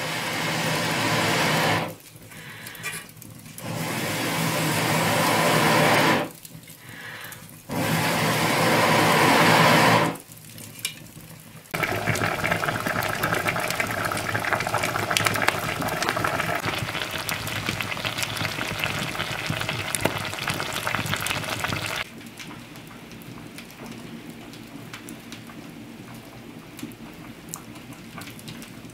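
Wood fire crackling and hissing in an open stone hearth, with many small pops. Several loud stretches start and stop abruptly in the first ten seconds, and the fire is quieter near the end.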